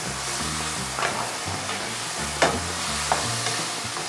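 Beef and vegetables sizzling in a frying pan in their freshly added sauce, stirred and tossed with a nylon spatula, with a few sharp clicks as the spatula knocks against the pan.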